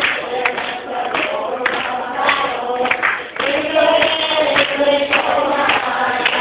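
Several voices singing together, church-style group singing, with sharp claps now and then.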